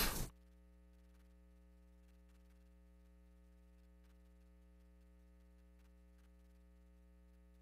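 A voice is cut off a fraction of a second in, leaving a faint, steady electrical mains hum on the audio feed.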